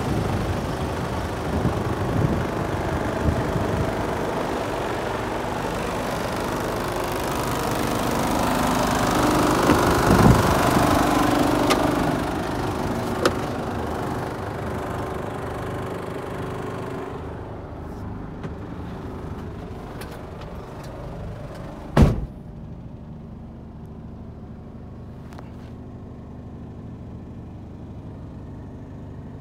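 Mercedes Actros 2545's 12.8-litre straight-six diesel idling steadily. The sound turns duller and quieter about two-thirds of the way through, as it is heard from inside the cab. One loud thump comes near three-quarters of the way in.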